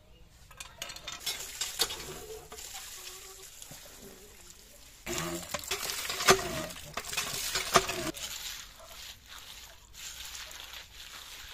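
Water from a hand pump splashing into a plastic basket of small fish, loudest from about five to eight seconds in, with sharp clacks mixed in. Near the end it quietens to hands stirring and rubbing the wet fish in the basket.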